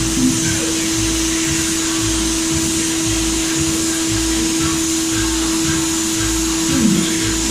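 Graco HVLP paint sprayer running: the turbine's steady whine under the hiss of air and shellac-based primer leaving the spray gun.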